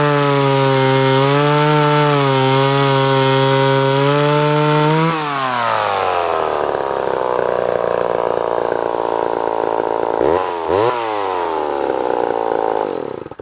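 Vintage Homelite XL Automatic two-stroke chainsaw running at high revs, then dropping to idle about five seconds in. It gets two quick blips of the throttle near the end and then shuts off.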